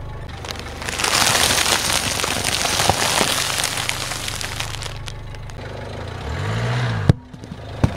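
Car engine idling with a low steady hum while a tyre rolls over and crushes objects, a crackling, crunching hiss lasting about four seconds. Near the end a brief low tone rises and falls, then a sharp click.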